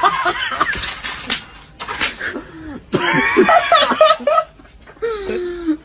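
People laughing hard in bursts, broken by a few short clicks and knocks.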